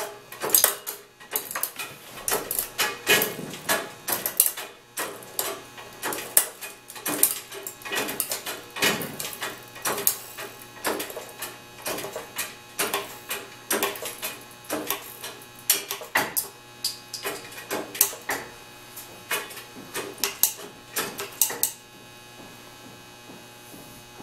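OTC 25-ton hydraulic shop press being worked to crush a die-cast metal toy: an irregular run of sharp clicks and clacks, a couple a second, from the press and the metal giving way under the ram. The clacking stops a little before the end, leaving only a steady low hum.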